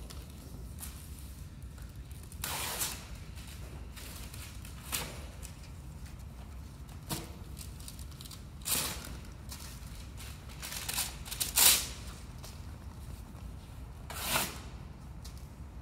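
A sheet of paper being torn and crumpled by hand in a series of short rustling rips, the loudest in the second half.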